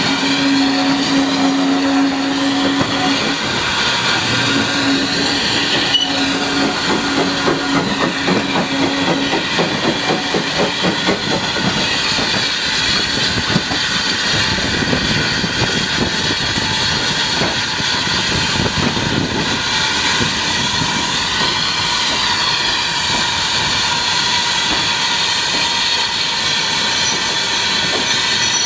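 Saddle tank steam locomotive running along the line, heard from on board: a steady hiss of steam with the clatter of wheels on the rails. A low steady tone sounds twice in the first nine seconds, and a quick run of exhaust or rail beats follows, before the noise evens out.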